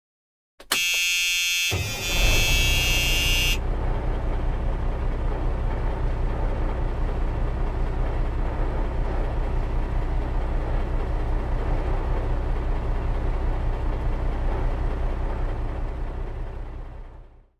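A vehicle horn sounds for about three seconds. Under it a motor vehicle's engine starts running steadily with a low pulsing rumble, and it fades out near the end.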